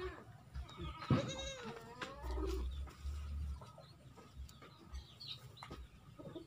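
A goat bleating once, about a second in: a single wavering cry of under a second, with a few low rumbles and small clicks around it.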